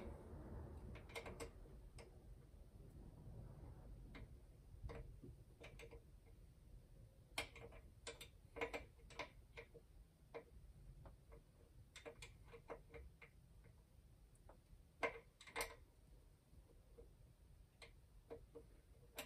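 Irregular light metallic clicks and taps of a wrench and hand tools working on fittings in a boat's engine bay, with a sharper pair of clicks about fifteen seconds in.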